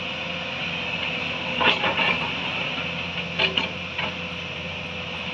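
Hyundai crawler excavator running steadily, its engine under a high steady whine, with short sharp metal clanks and scrapes about one and a half, two, and three and a half seconds in as the bucket works the ground.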